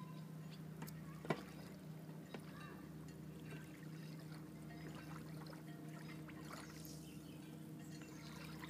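Shallow seawater trickling and lapping quietly around wading legs and rocks, with many small ticks and a steady low hum under it. A single sharp click about a second in.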